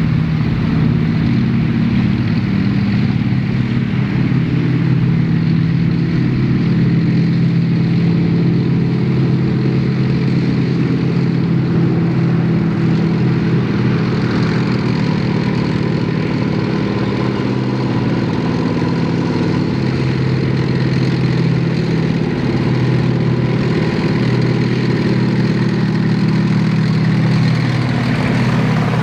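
Heavy military vehicle engines running steadily with a low, even note, loud and close throughout.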